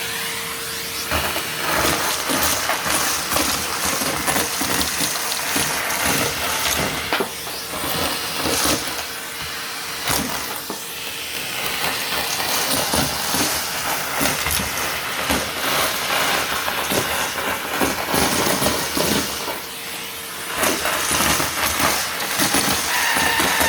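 Vacuum cleaner running on carpet with a steady whooshing hiss, full of quick crackles and rattles as sand and debris are sucked up.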